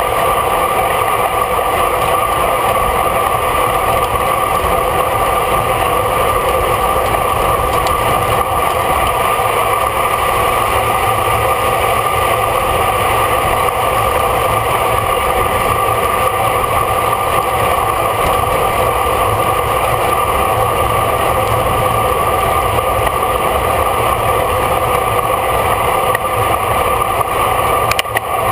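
Steady rush of wind over a bicycle-mounted camera's microphone while riding at race speed.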